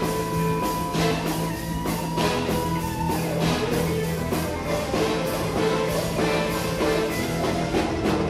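Live pop-rock band with a horn section, violin, electric guitar and drum kit playing, driven by a steady drum beat.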